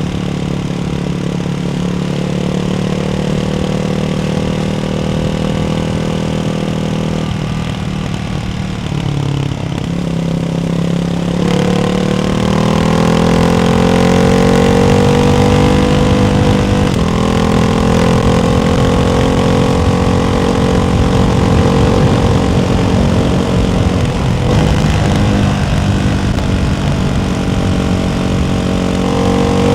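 Ducati Hypermotard 698's single-cylinder engine running through a baffled Termignoni exhaust at changing revs. The pitch holds steady, drops away for a few seconds, then climbs about eleven seconds in and holds higher.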